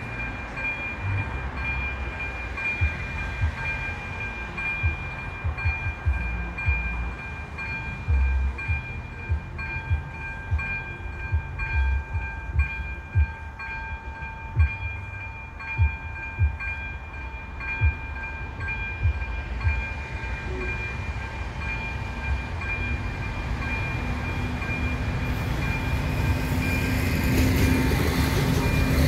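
Railway level crossing's electronic warning bell ringing steadily with evenly repeated strokes, with occasional low thumps. Over the last few seconds the rising noise of an approaching train grows louder.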